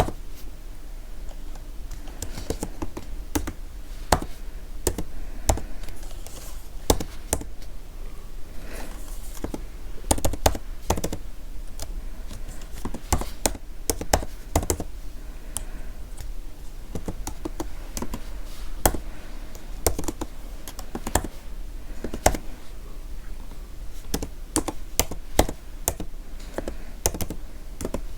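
Typing on a computer keyboard: an irregular run of sharp key clicks and clacks, some strokes louder than others.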